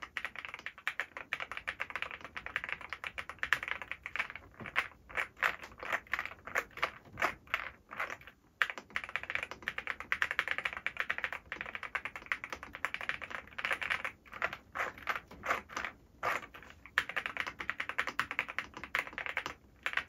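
Fast typing on a NuPhy Gem80 mechanical keyboard fitted with stock Gateron x NuPhy Raspberry switches, an FR4 plate and 30-hardness silicone bean mounts: a dense run of keystrokes with a few brief pauses.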